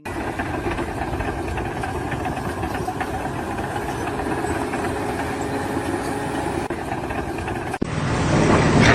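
An engine running steadily. About eight seconds in it cuts abruptly to a louder engine sound.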